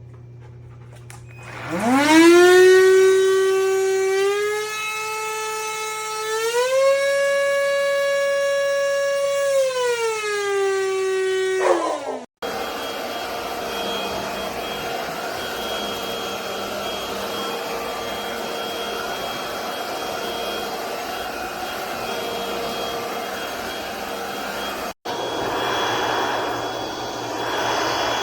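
NADALY cordless stick vacuum's motor spinning up with a rising whine, stepping up in pitch twice as it is switched through its suction modes, then dropping back and winding down. After a cut, the vacuum runs steadily with a rushing airflow sound, broken by another brief cut near the end.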